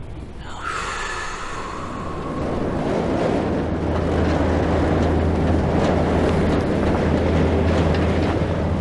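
Motorized sliding metal gate opening: a steady low mechanical rumble that grows louder over the first few seconds and then holds.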